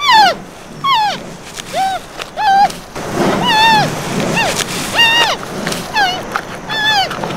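Red panda giving a string of short, high squealing calls, about one a second, each a quick rise and fall in pitch. From about three seconds in, a rougher low sound runs under them.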